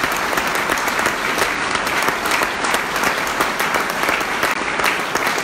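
Audience applauding, many people clapping at once in a steady, dense clatter.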